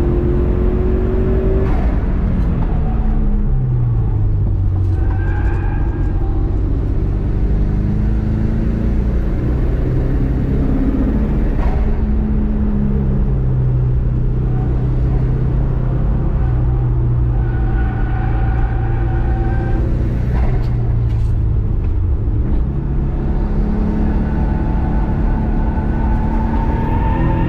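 Turbocharged EJ207 flat-four of a Subaru Impreza GC8 driven hard, its engine note falling a couple of seconds in, holding low and steady, rising and dropping again around the middle, then climbing once more near the end, over a constant heavy rumble.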